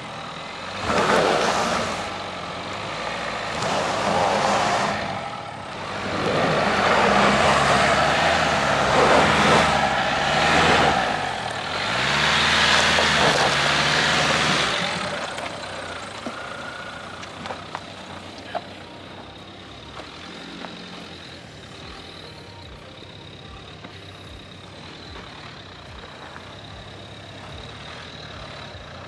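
Dacia Duster 4x4 engine revving under load, rising and falling in pitch, for the first fifteen seconds or so. It then drops to quieter steady running.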